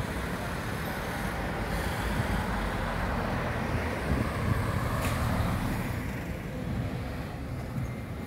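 Road traffic: cars passing along a town street, one swelling past about halfway through, with wind buffeting the microphone.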